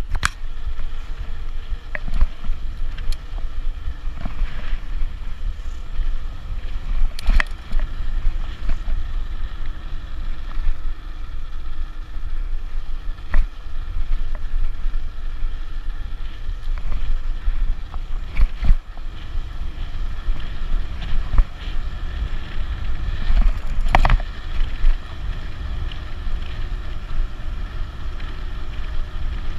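Wind rushing over the camera microphone of a fast-moving e-bike, a steady low buffeting rumble mixed with tyre noise on pavement, broken a few times by short sharp knocks and rattles from the bike going over bumps.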